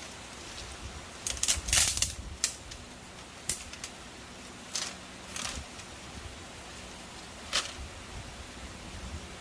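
Irregular knocks and clatters of things being handled: a quick cluster about a second or two in, then single knocks a second or so apart.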